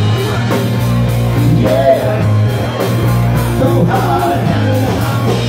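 Live rock band playing loudly: drums, a deep steady bass line and a singer's voice.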